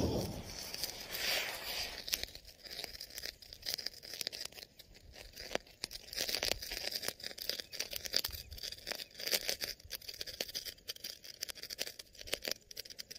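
A chakri spinner firecracker burning inside a plastic pipe hisses out in the first moment, then the smouldering remains crackle and pop irregularly.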